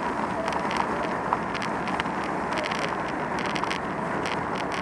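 Steady wind buffeting and road noise on a moving bicycle's camera, with motor traffic running alongside and scattered light clicks and rattles.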